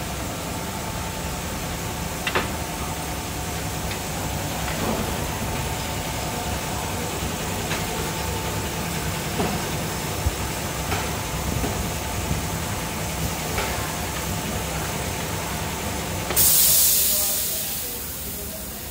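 Steady hum of a CNC steel-cutting machine with a few light clicks, then a sudden loud hiss of compressed air about 16 seconds in that fades away over about two seconds.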